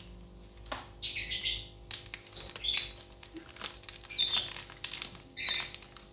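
Plastic sachets of table salt crinkling in four short bursts, with small clicks, as they are torn open and shaken out into a plastic bucket.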